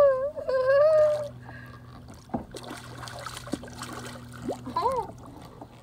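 A woman's drawn-out, wavering exclamation in the first second. Then water sloshes and splashes against the kayak as a hooked catfish is fought at the surface, with a few sharp knocks and a faint steady hum underneath.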